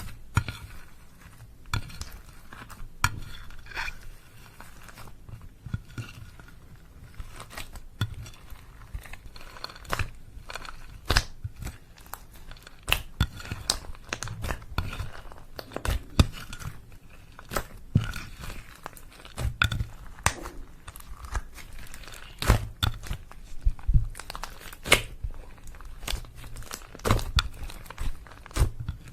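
Slime being kneaded and stretched by hand with crushed makeup mixed in: wet clicks and pops at an uneven pace over a soft crinkling squish.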